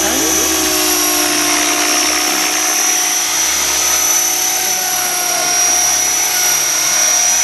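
Electric model helicopter flying: a steady high-pitched motor whine over the rotor's hum.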